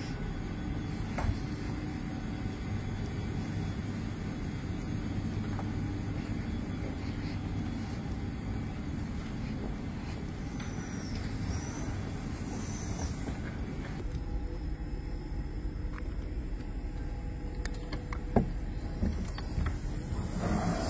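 Steady hum of a South Western Railway electric train standing at the platform, with a constant low tone and a single sharp click near the end.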